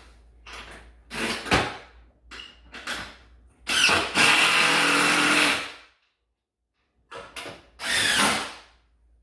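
Power drill driving wood screws to fasten the wooden chip rails onto the table, in a few short spurts, then one longer run of about two seconds, and a last short run near the end.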